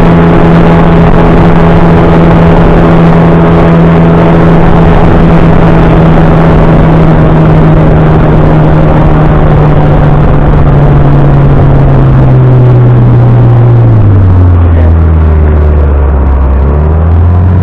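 Sea Pro 9.9 two-stroke outboard motor running steadily at speed. About twelve seconds in, the engine slows, its pitch falling over a couple of seconds, then it picks up slightly near the end.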